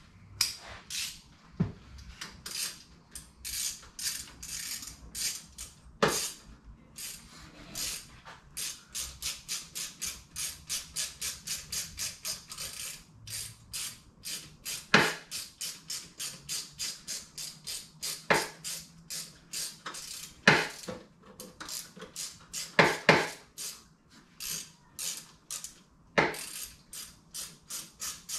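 Hand ratchet clicking in long runs of quick, even strokes, about three to four clicks a second, as bolts are run back in under the hood, with a few louder metal knocks of the tool against the engine.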